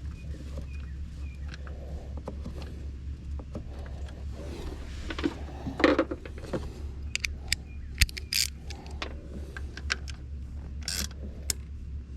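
Hand tools and metal parts being handled: scattered metallic clinks, taps and short scrapes over a steady low hum.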